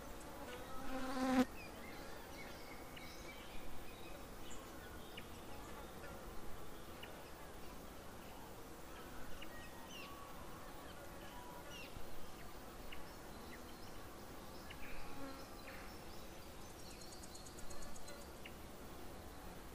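Night-meadow insect soundscape: a pitched insect buzz about a second in, the loudest moment, then scattered short chirps and clicks, with a brief fast high trill near the end.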